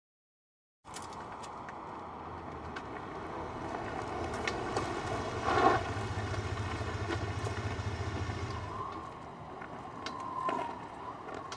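After a second of silence, a small rear-engined Fiat 600-type car's engine runs with a steady low hum and stops about nine seconds in. A few short knocks sound over it, the loudest a clunk around the middle.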